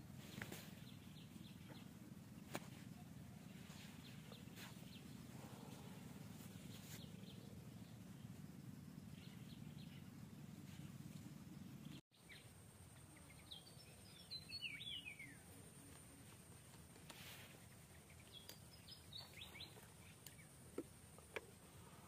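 Near silence: faint outdoor ambience with a low steady hum, cut off for an instant about halfway through. After that come a few short clusters of faint, high, falling chirps, about two seconds in after the cut and again near the end.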